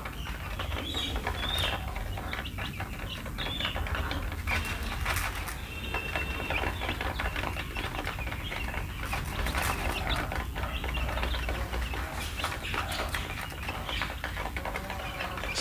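A flock of two-week-old chicks pecking at grain in a plastic feed tray, many small clicks and taps, with a few short high peeps now and then, mostly in the first half. A steady low hum runs underneath.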